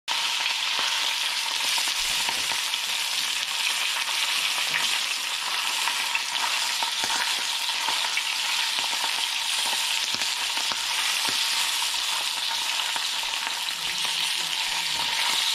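Whole pompano pan-frying in hot oil in a skillet, a steady sizzle, with the light scrape and tap of a wooden spatula pressing and nudging the fish in the pan.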